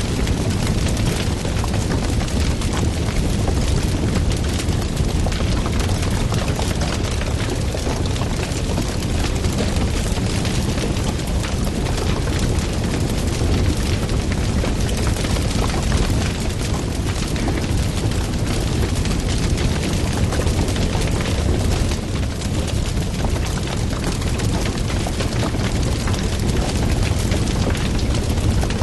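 Wood fire burning loudly, with dense continuous crackling and popping over a steady low roar.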